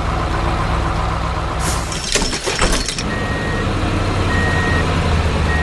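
Heavy truck engine running steadily, with a short noisy burst about two seconds in, then a reversing beeper sounding about once a second as the tow truck backs into position.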